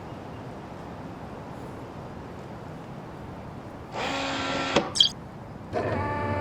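Faint steady background noise, then a horn sounds twice: a short blast about four seconds in and a longer one starting near the end. A brief, sharp high-pitched sound comes between the two blasts.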